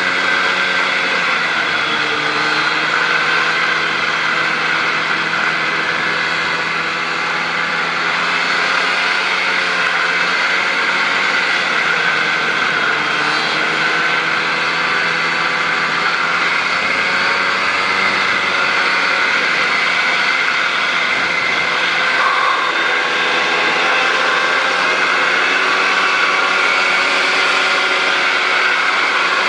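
Snowmobile engine running steadily under way, heard from on the sled, its pitch rising and falling gently with the throttle.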